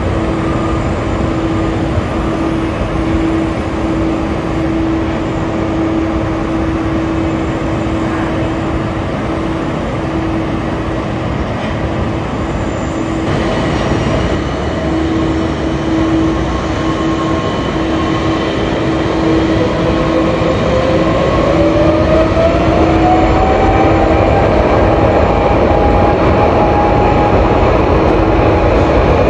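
Jet airliner engines running, the sound cutting over about halfway through to a Boeing 777-200LR whose GE90 engines then spool up in a rising whine for takeoff, growing louder toward the end.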